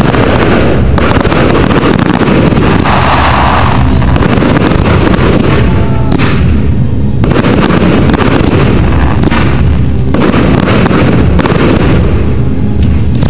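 Professional fireworks display firing a dense barrage: rising shots and aerial shell bursts following one another with no gaps, their bangs and crackle overlapping into one continuous loud noise.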